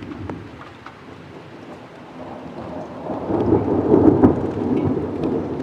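Thunder rumbling from cloud-to-ground lightning, swelling from about two seconds in to its loudest near four seconds and then slowly easing off.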